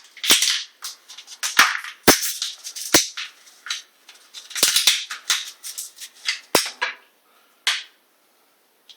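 Plastic packaging crackling and crinkling in the hands, with several sharp snaps, as a small bottle of super glue is taken out of its packet. The crackle stops about seven seconds in, followed by two single clicks.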